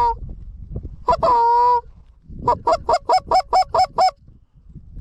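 Goose honking: one long, steady honk about a second in, followed by a quick run of about eight short clucks.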